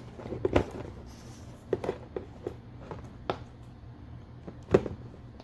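Small plastic clicks, taps and knocks as hands handle and turn two plastic transforming robot action figures standing on a cardboard box. There is a louder knock near the end.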